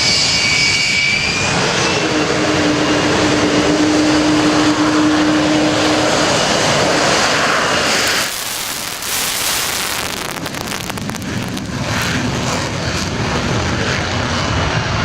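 Loud aircraft engine noise from a display plane, with a high whine at first and a steady low hum from about two to six seconds in. Near eight seconds it drops and turns rough and crackling.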